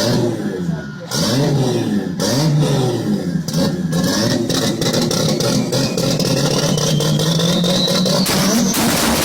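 Straight-piped Toyota Supra Mk4's twin-turbo 2JZ-GTE inline-six revved in quick blips with sharp crackling pops from the exhaust, then held at steady revs while a high turbo whistle rises steadily in pitch.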